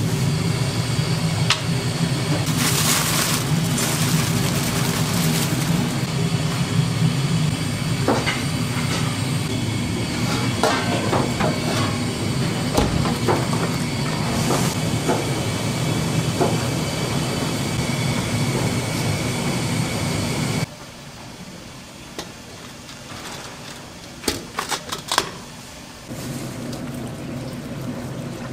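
Restaurant ambience: a steady low hum with scattered clinks and knocks. About two-thirds through, the hum drops away abruptly, leaving a quieter room with a few sharp clinks, and a softer hum returns near the end.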